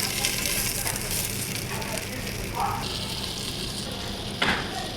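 Chowmein sizzling steadily as it fries in a handi over a wood fire, with a sharp scrape or knock of a utensil on the pot near the end.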